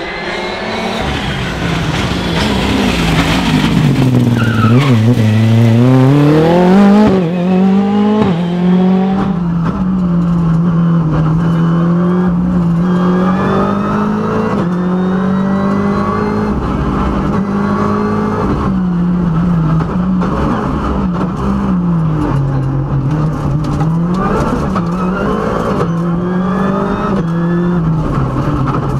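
Ford Fiesta R5 rally car's turbocharged four-cylinder engine driven hard at rally pace. First it is heard from the roadside as the car approaches, with the revs dropping sharply and then climbing again. After about nine seconds it is heard from inside the car, the engine note repeatedly rising and falling with gear changes and lifts off the throttle.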